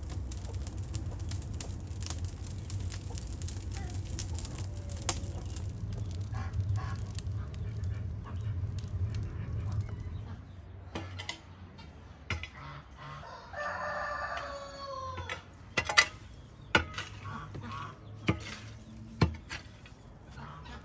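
Wood fire burning in a clay tandoor, a low roar with crackling, for about the first half. A rooster crows once past the middle. Then come a few sharp knocks, the loudest sounds here, as a poker works the embers.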